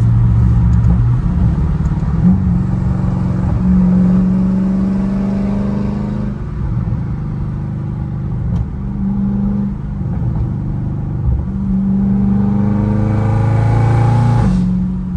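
Dodge Charger Scat Pack's 392 Hemi V8 with catless mid-pipes, heard inside the cabin while driving. It rises in pitch under acceleration over the first few seconds and drops back about six seconds in. It pulls again and rises near the end, then drops sharply.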